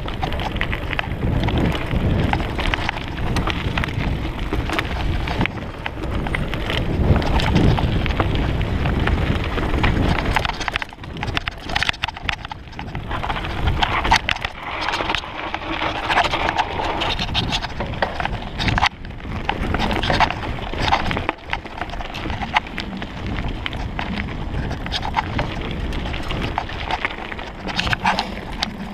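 Mountain bike riding down a dirt trail: tyres running over dirt and the bike rattling and clattering over bumps, with wind rushing on the microphone.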